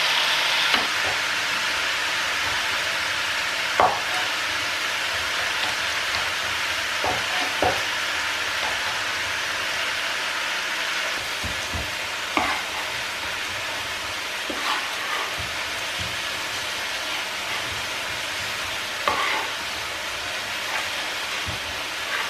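Chicken strips frying in oil in a wok, a steady sizzle that slowly eases a little, with a few sharp knocks of a knife on a wooden chopping board as garlic is crushed and chopped.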